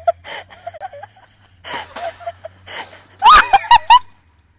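A person laughing breathily, then a few loud, wavering shrieks about three seconds in.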